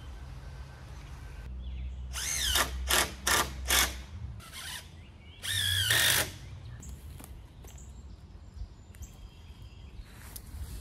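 Cordless drill working into 2x4 lumber: several short trigger bursts, then one longer run, its motor whine wavering in pitch.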